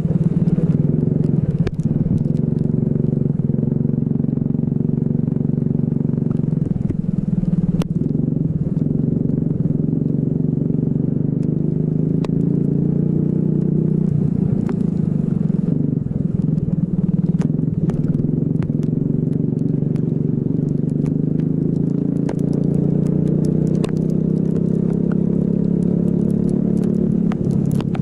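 Racing kart engine running hard through a lap, its pitch dropping and climbing again several times as it slows for corners and accelerates out. Scattered sharp ticks sound over the engine.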